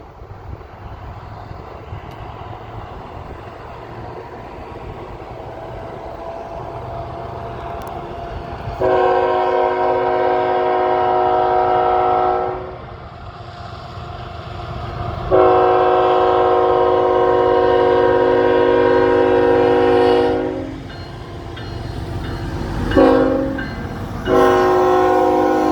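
Locomotive Nathan Airchime K5LL five-chime air horn sounding the grade-crossing signal: two long blasts, a short one, then a final long one beginning near the end. Under the horn is the rumble of the approaching diesel train, growing louder over the first several seconds.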